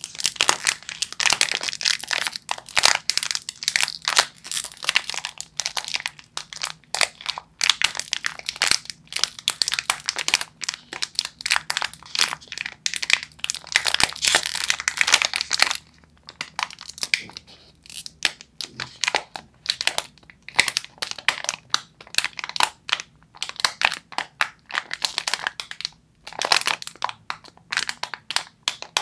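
Crinkly plastic snack wrapper being squeezed and crumpled in the hands close to the microphone, in dense runs of crackling with a short lull a little past halfway.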